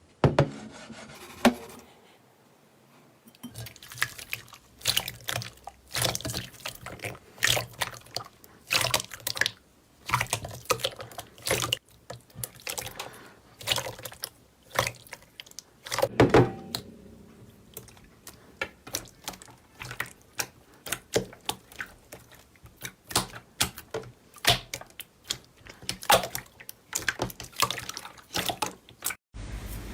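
Slime being squeezed and poked by hand: an irregular run of wet, sticky squelches and small pops.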